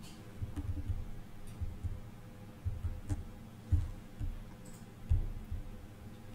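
Typing on a laptop keyboard: irregular dull taps and knocks, a few louder than the rest.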